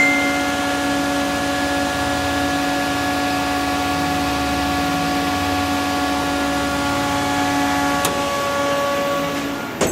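Haas Mini Mill CNC vertical machining center running, a steady motor hum with several held tones over a hiss. It dies away near the end, and a couple of sharp clicks come just before.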